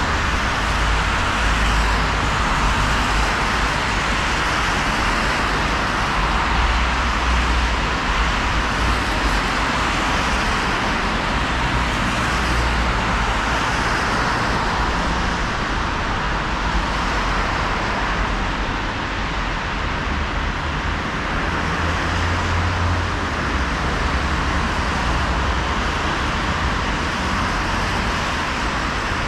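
Steady road traffic on a wet city street: tyres hissing on the rain-soaked road over a low engine rumble that swells and fades as vehicles pass.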